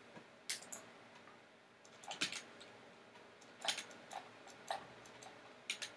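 Faint, irregular clicks of a computer mouse and keyboard, about a dozen scattered short clicks.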